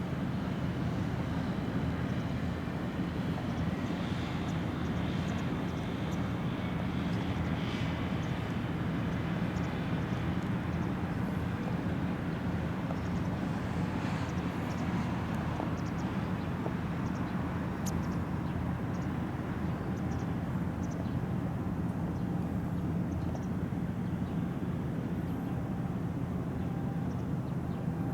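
Steady low drone of the ferry Naoshima's diesel engines, an even hum that holds the same pitch and level throughout.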